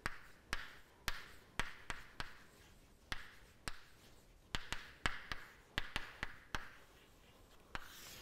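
Chalk writing on a chalkboard: irregular sharp taps as the chalk strikes the board, with short scratchy strokes between them as a word is written out letter by letter.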